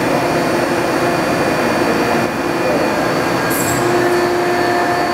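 Steady hum and whir of running machinery in a machine shop, with several steady tones held throughout.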